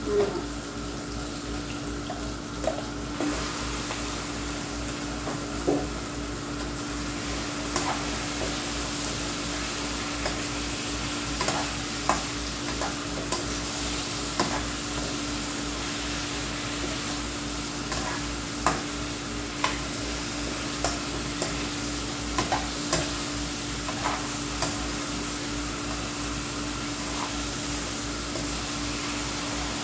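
Chicken pieces frying in a hot pan with a steady sizzle that grows fuller a few seconds in, after the meat is tipped in from a steel bowl with a knock at the start. A metal spatula and ladle scrape and click against the pan now and then as the chicken is stirred.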